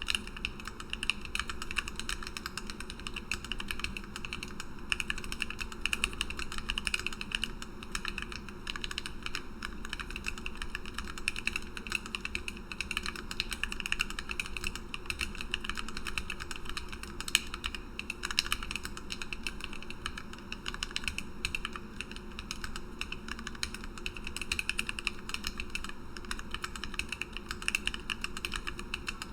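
Continuous fast typing on a Lily58 split mechanical keyboard with lubed and filmed Gateron Black Ink V2 linear switches, acrylic plate and bottom, and PBT OEM-profile blank keycaps: a dense run of keystroke clacks over a faint steady hum.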